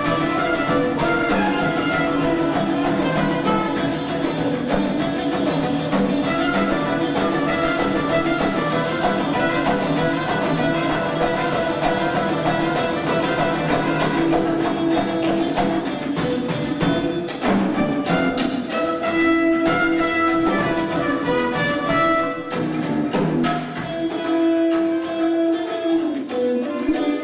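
Live fusion ensemble playing: clarinet and trumpet lines over a drum kit, with a veena and tabla, held together by a steady percussive pulse.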